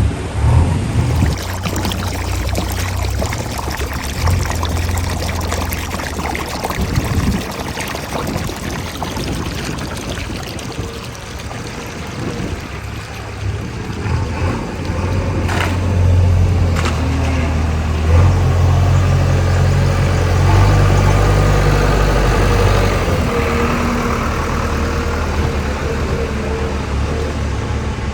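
Heavy diesel engine of a JCB 3DX backhoe loader running under changing load while loading dung, its level rising and falling, quieter about a third of the way in and loudest a little past the middle.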